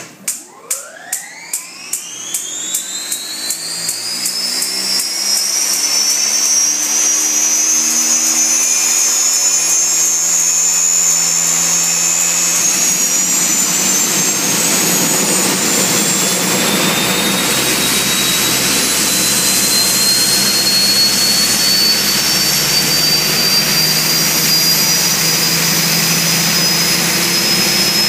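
Small gas turbine engine in a boat starting up. A run of sharp ticks, about two or three a second, comes over the first few seconds while a whine climbs quickly in pitch. The turbine then settles into a loud, steady high-pitched whine over a rushing roar.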